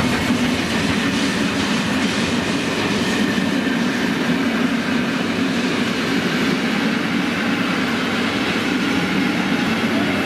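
Special train rolling past on the rails, a steady rumble of wheels on track with some clatter over the joints.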